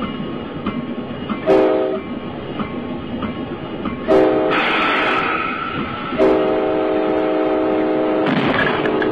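Locomotive air horn sounding a multi-note chord: two short blasts, then a long one beginning about six seconds in, over the running rumble of a train.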